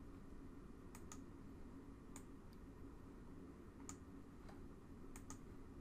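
Faint computer mouse clicks, about eight scattered through a few seconds, some in quick pairs, over a quiet room hum as dialog windows are clicked and dragged.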